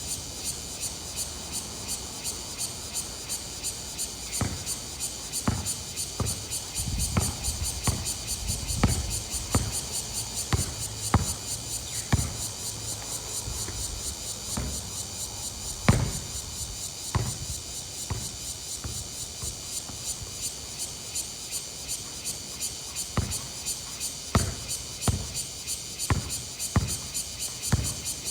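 A ball bouncing on a court: irregular thuds starting about four seconds in, roughly one a second, the loudest about halfway through. Under them runs a steady, fast-pulsing high chirring of insects.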